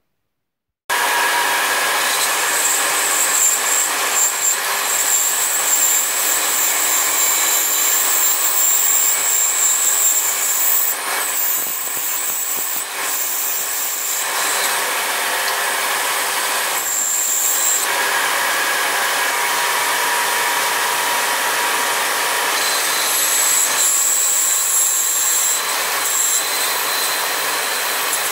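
Band saw running and cutting through walnut along a curved line: a steady whine mixed with the hiss of the blade in the wood, starting about a second in.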